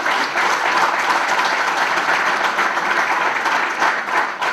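Audience applauding, a dense, steady clapping that begins to thin out near the end.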